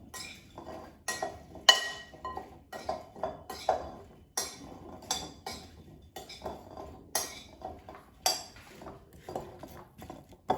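Raw potato wedges being tossed in a bowl with oil and seasoning: irregular clinks and knocks against the bowl, one or two a second, some with a short ring.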